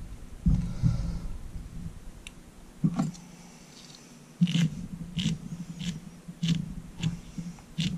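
Small handling noises at a fly-tying vise: a couple of soft knocks, then from about halfway a series of short clicks and taps.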